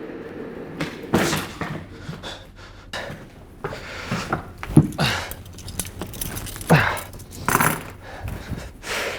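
A scuffle of two people: grunts and panting with scattered knocks and thuds as one person wrestles another into restraint.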